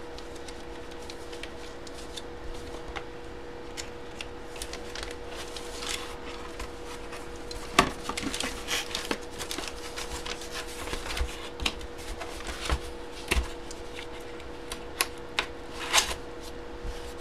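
Hands handling packaging: rustling, crinkling and light taps and knocks that start a few seconds in and grow busier, the loudest a knock about eight seconds in, over a steady low hum.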